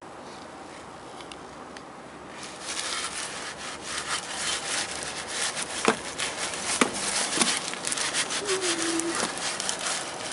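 Rag wiping and scrubbing around a car engine's oil filter mounting surface: a dense, rough rubbing that starts about two seconds in, with a few knocks along the way.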